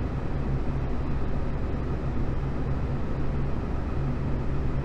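Afterburning military turbofan jet engine running with its afterburner lit in an enclosed engine test cell: a steady, heavy noise with a strong low rumble.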